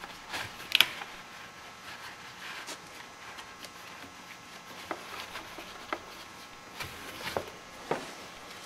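A shop towel rubbing and wiping out the starter bore in an ATV engine case, heard as faint rustling with scattered light clicks and taps, a few sharper ones about a second in and near the end.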